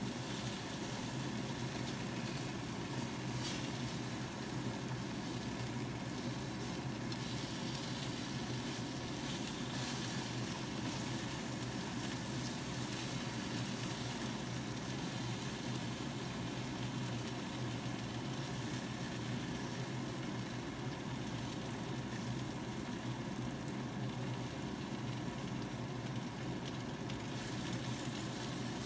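Steady low mechanical hum, with a faint sizzle of food frying.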